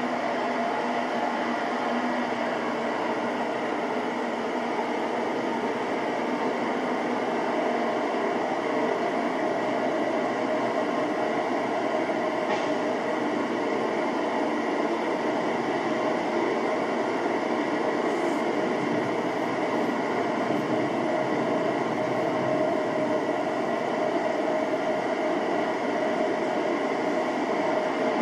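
Steady rushing hiss of gas venting from the Antares rocket standing fuelled on the launch pad, picked up by the pad microphone.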